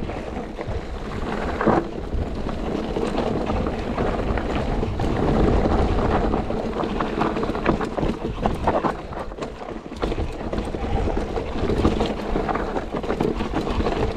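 Mountain bike riding a dirt trail: tyres rolling over the ground with frequent short clicks and knocks from the bike, under steady wind noise on the action camera's microphone.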